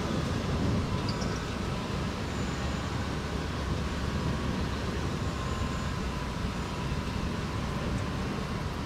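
Steady low rumble of distant city traffic. The tail of a soft thunder roll fades out during the first second.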